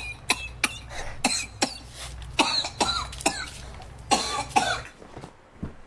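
A person coughing: a quick string of short, sharp coughs, then a few longer, hoarser coughing bursts, stopping about five seconds in. The coughing fit comes from eating ice cream.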